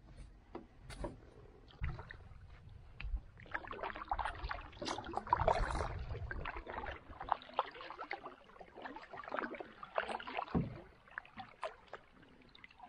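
Solo pack canoe being paddled on calm water: the paddle blade dips and pulls through in uneven swells of gurgling, swirling water and drips, with scattered light clicks and knocks.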